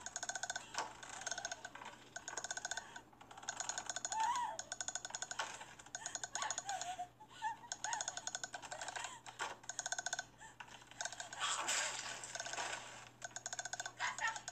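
A ghost's death-rattle croak: a rapid clicking, creaking rattle from the throat, in long stretches broken by short pauses. It swells louder near the end.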